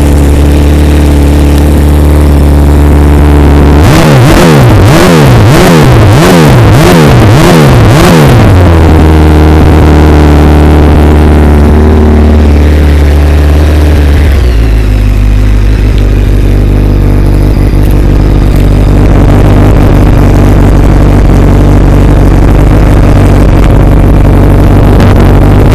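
Honda CBR900RR Fireblade (SC33) inline-four running through aftermarket Akrapovič headers and a Sebring end can: idling, then blipped about five times in quick succession, each rev rising and falling, before settling back. The idle sits a little high at first and drops to a lower, steady idle about halfway through.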